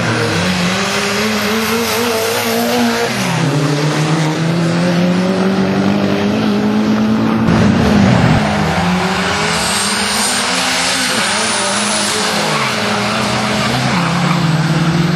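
Drag-racing cars accelerating hard down the strip. The engine note climbs and drops back sharply at each upshift, several times, with tyre squeal.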